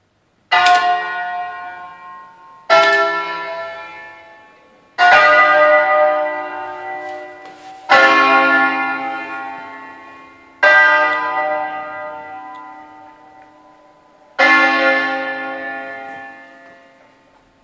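Church bells from an eight-bell ring in D-flat, cast by D'Adda in 1954, heard through a phone from inside the sacristy. Six separate strokes on different bells sound a few seconds apart, each ringing out and slowly fading before the next.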